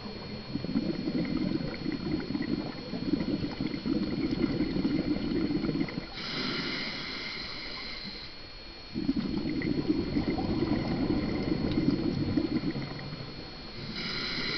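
Scuba regulator breathing underwater: long gurgling bursts of exhaled bubbles, broken about six seconds in by a two-second hissing inhalation through the regulator, with another inhalation starting near the end.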